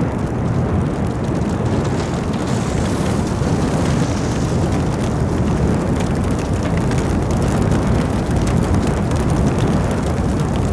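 Loud, steady rushing of a tornado's wind close by, with crackling where the gusts buffet the microphone.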